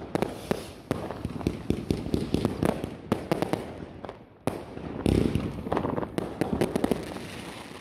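New Year's fireworks going off: a dense run of sharp cracks and pops one after another, with a heavier, longer burst about five seconds in.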